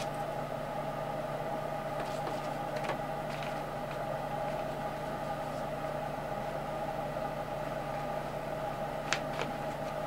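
Steady machine hum in the room, with a few faint clicks and one sharper tap about nine seconds in as small wooden kit pieces are handled and fitted into slots.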